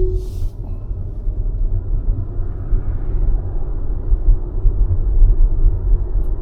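Road and tyre noise inside an electric car's cabin while driving: a steady low rumble with no engine note.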